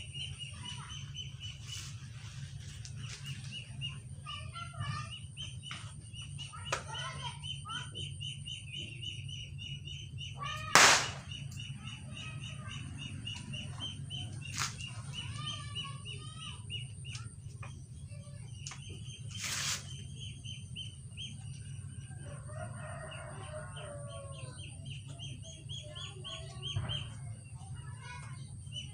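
Birds chirping and calling, chickens among them, over a steady high chirring. There is a loud sharp knock about eleven seconds in and fainter knocks later, from hands working at a plastic filter tank.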